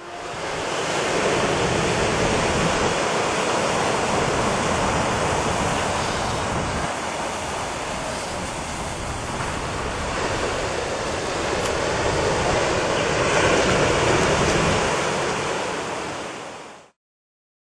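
Ocean surf washing on a rocky shore, with wind; it swells a little near the end, then drops away suddenly.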